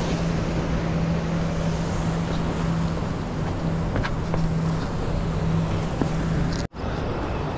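A boat's engine running at a steady, even pitch under a wash of wind and sea noise; the engine hum stops abruptly near the end.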